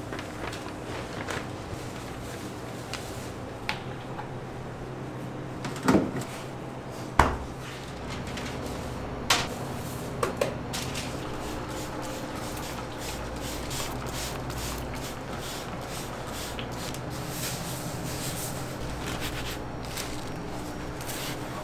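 Kitchen work at a bakery: a few sharp knocks and clatters, the two loudest about six and seven seconds in and smaller ones around nine and ten seconds, over a steady hum of equipment, with faint light ticks later on.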